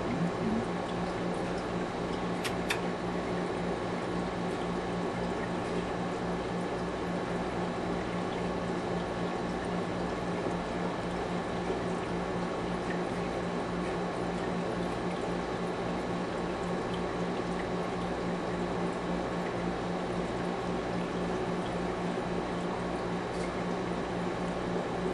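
Aquarium filter running: a steady bubbling, trickling of water over a low, even electrical hum. A single small click about two and a half seconds in.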